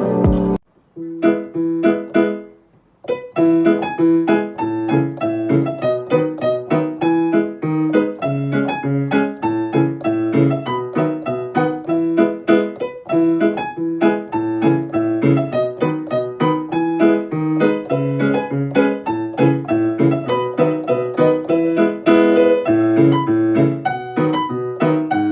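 Piano music: a steady run of notes that starts up about a second in, breaks off briefly, and then plays on without pause.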